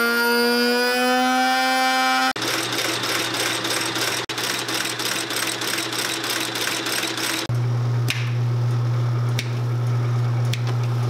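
Shoe-repair machinery: first an electric machine motor whining, its pitch rising slightly about a second in. Just after two seconds this gives way to a sole-stitching machine running with an even clatter of about four strokes a second over a hum, and from about seven and a half seconds a steady deep motor hum.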